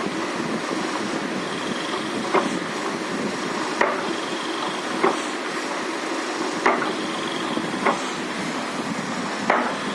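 High-torque geared DC motor of a test ventilator whirring steadily as it drives the squeeze mechanism back and forth through inflation and deflation cycles, with a sharp click every second and a half or so.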